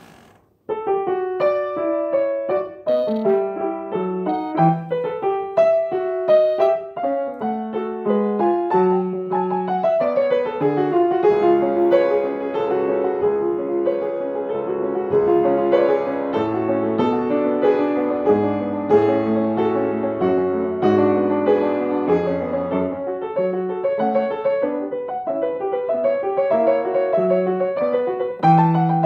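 Grand piano played solo: a sparse single-note melody begins about a second in, and from about ten seconds fuller chords with low bass notes join it.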